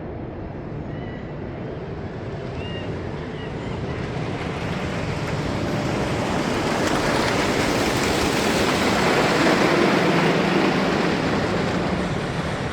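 Roller coaster train rumbling along its track, growing louder to a peak about eight to ten seconds in, then easing off as it passes.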